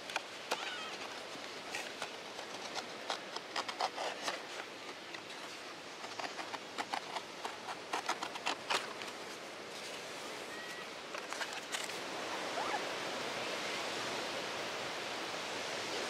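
Irregular crunching steps on a path for about the first twelve seconds, then a steady rushing noise takes over and grows a little louder.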